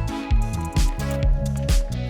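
Background music with a steady beat, bass line and held melody notes.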